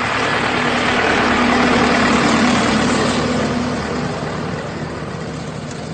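A heavy truck drives past close by, its engine growing louder to a peak about two seconds in and then fading away.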